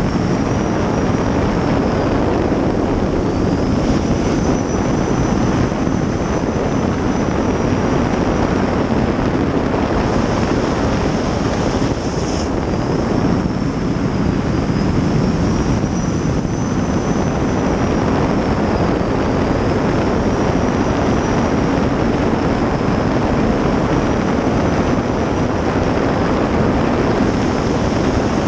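A 2000 hp gas turbine in a racing jet boat running at speed. Its high whine slowly rises and falls with the throttle over a dense rush of water and wind.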